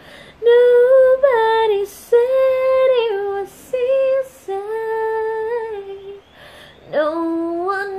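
A young woman singing unaccompanied, long held wordless notes with short breaths between them and a note sliding up into place near the end.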